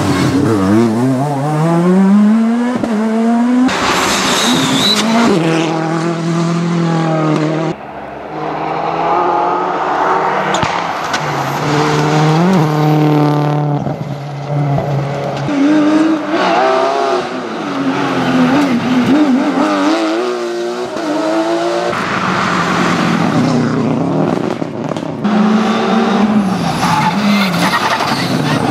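Rally cars, Škoda Fabias and a Ford Focus WRC, driven hard past the microphone one after another. Their engines rev up and drop back repeatedly through gear changes and braking. The sound cuts abruptly from one car's pass to the next a few times.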